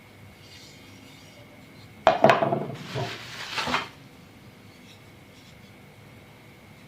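Dishes and kitchenware being handled: two sharp clinks about two seconds in, then about two seconds of rattling and scraping before it stops.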